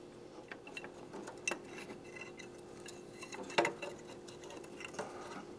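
Light, irregular metallic clicks and clinks of hand tools and engine parts being handled, the loudest about three and a half seconds in, over a faint steady hum.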